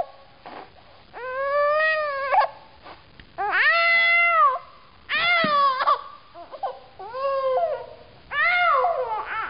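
An 8-month-old baby crying in a series of about five drawn-out wails, each about a second long, rising then falling in pitch, with short breaths between them: fussing in protest at tummy time.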